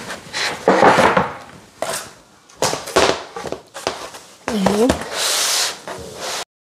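IKEA particleboard shelf panels being handled on flattened cardboard packaging: sliding and scraping, a few sharp knocks, and rustling cardboard, with a steady scraping hiss about five seconds in.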